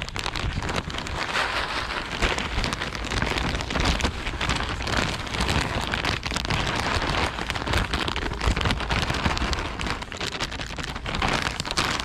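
Steady crackling noise with a low rumble: wind and handling noise on the microphone of a handheld camera as it is carried about.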